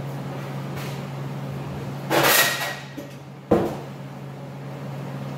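Steel tools being handled while a pry bar is fetched: a scraping metal clatter about two seconds in, then a single sharp knock, over a steady low hum.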